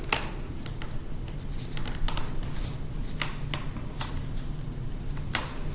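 Irregular sharp clicks and taps of a laptop's metal and plastic parts being handled and pried apart, over a steady low hum.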